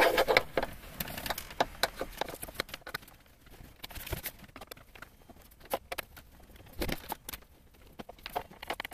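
Irregular light clicks and taps of hands working on a Honda Prelude's plastic dashboard trim, along the row of screws on top of the dash.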